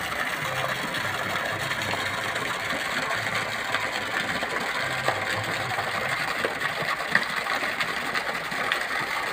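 Fountain water jet falling steadily into a pond, an even splashing rush.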